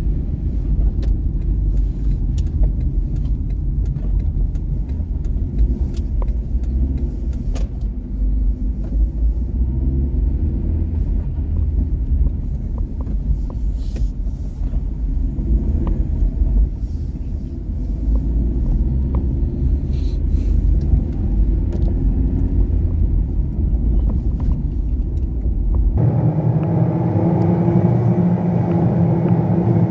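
Inside a moving car on a rain-soaked road: a steady low rumble of engine and road noise, with scattered small ticks of raindrops on the windshield. Near the end the sound changes abruptly, the deep rumble dropping away and a brighter, humming sound taking its place.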